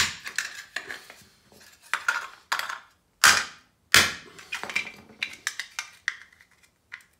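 Hand tools working on a piece of weighted sterling silver hollowware: metal knocks and clinks with lighter clicks and scrapes, and two sharp, hard strikes about three and four seconds in.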